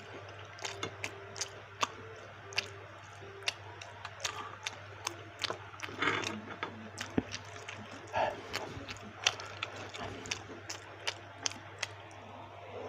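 Close-up eating sounds of baso aci: wet chewing with irregular sharp mouth clicks and smacks. There are two longer wet slurps, about six and eight seconds in.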